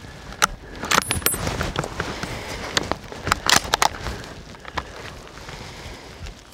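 Footsteps crunching through dry grass and brush, with a series of sharp clicks and rattles of carried gear, a couple ringing briefly like metal about a second in.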